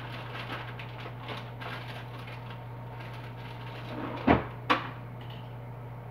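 Two short knocks about four seconds in, half a second apart, as things are moved about in an open refrigerator, over a steady low hum.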